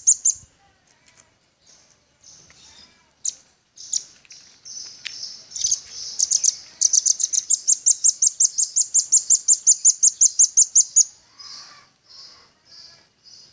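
Velvet-fronted nuthatch (rambatan paruh merah) calling with high, sharp chips. Scattered single notes come first, then about seven seconds in a long, fast run at roughly six chips a second that lasts some four seconds, and a few softer chips follow.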